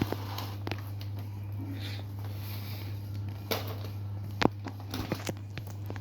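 Scattered light knocks, clicks and rustles of things being handled over a steady low hum, with the sharpest knock about four and a half seconds in.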